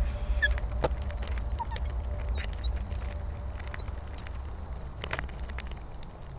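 A run of short, high-pitched chirps over a low rumble that slowly fades away, with a few scattered clicks.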